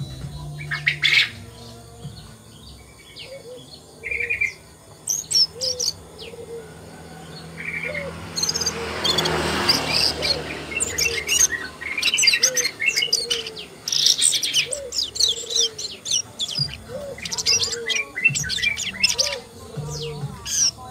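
Asian brown flycatcher chirping: many short, thin, high calls and quick trills, growing busier after the first several seconds. Under them, a soft low note repeats about once a second, and a brief rush of noise swells and fades about nine seconds in.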